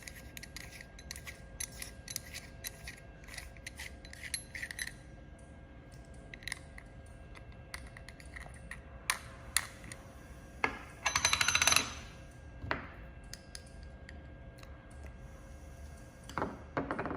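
Small metal parts of a laser welder's head being handled as the protection lens is removed: light clicks and taps, scattered knocks, and about eleven seconds in a loud, rapid rattle lasting about a second, over a faint steady hum.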